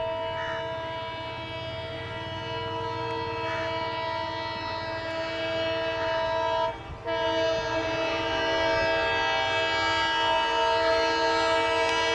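WDP 4 diesel locomotive's horn sounding a long, held chord of several tones as the train comes on at speed. The horn breaks off briefly about seven seconds in, then resumes and grows louder over a low rumble from the train.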